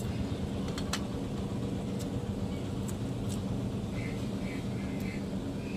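A steady low mechanical hum, with a few sharp clicks and taps as food is eaten by hand from the plates. Several short high chirps come in the second half.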